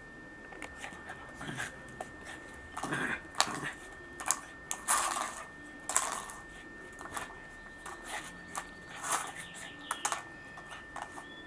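A Bernese Mountain Dog puppy playing with a grooming comb on stone patio tiles: irregular sharp clicks, clatters and short scrapes as the comb and claws knock and drag across the stone, loudest a few seconds in.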